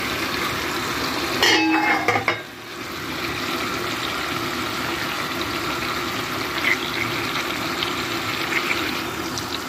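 Meat cutlets sizzling steadily as they fry in oil in a frying pan. A brief pitched sound stands out about a second and a half in.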